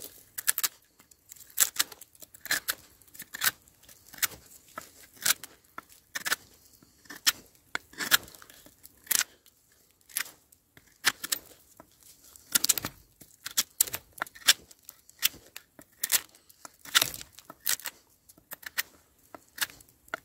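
Sami knife by Knivsmed Strømeng whittling shavings off a dead branch: short, sharp slicing cuts, about one or two a second at an uneven pace.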